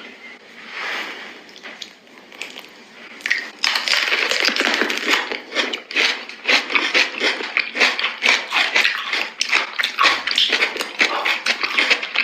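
Close-miked chewing of fresh fruit: soft mouth sounds at first, then dense, rapid crunching from about three and a half seconds in.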